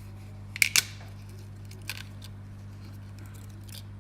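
A few sharp small clicks, two close together about half a second in and a fainter one near two seconds, as an iPhone logic board and its connectors are handled on a repair bench, over a steady low hum.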